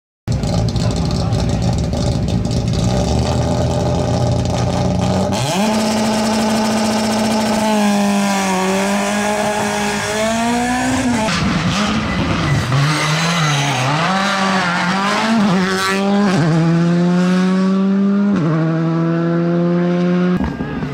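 Rally car engine at full throttle, its revs swinging up and down, then climbing steeply and dropping twice near the end as it shifts up through the gears.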